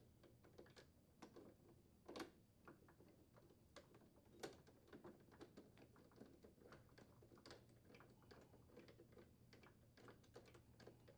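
Faint, scattered small clicks and ticks of a refrigerator front wheel adjusting bolt being turned by hand into the speed nut of a new wheel adjuster assembly. Two slightly louder clicks come about two and four and a half seconds in.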